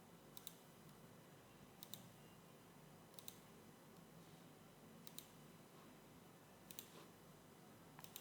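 Six faint computer mouse clicks, each a quick double tick, about every one and a half seconds over a near-silent room hiss.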